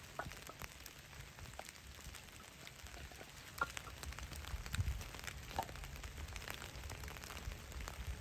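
Small campfire of damp wood crackling and sizzling, with scattered soft pops and ticks at irregular times over a low rumble.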